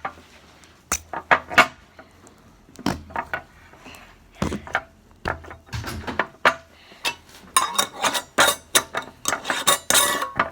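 Irregular clicking and clinking of small objects being handled, a string of short knocks and clinks that grows busier in the second half.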